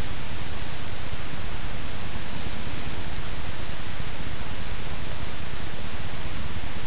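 Steady, even hiss of static from a den camera's audio feed, unchanging throughout, with no separate knocks or calls standing out.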